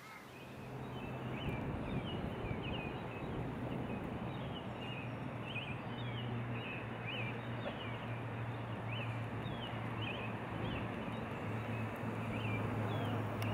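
Outdoor waterside ambience: many small birds calling in short, high chirps, several a second, over a steady low hum and a broad hiss.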